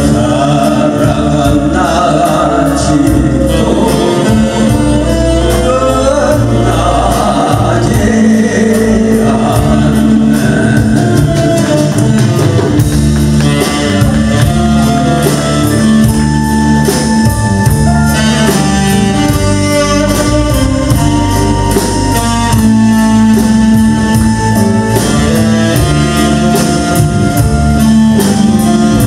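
Male singer performing a Korean pop song live with a band of keyboard, saxophone, drums and electric bass. The voice carries the first part; later the band plays on with long held notes while the singer holds the microphone lowered.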